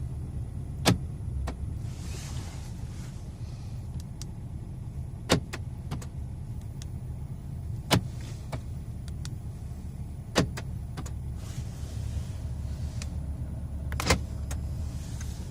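Datsun's central door-lock actuators clacking as the car is locked and unlocked from the alarm: five sharp clacks a few seconds apart, over a steady low rumble.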